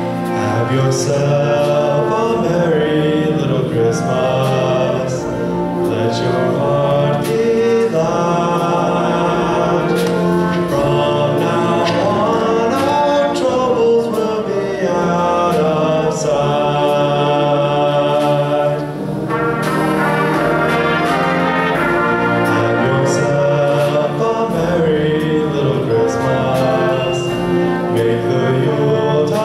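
Student orchestra with brass, playing live and accompanying a group of voices singing. The music dips briefly about two-thirds of the way through, then carries on.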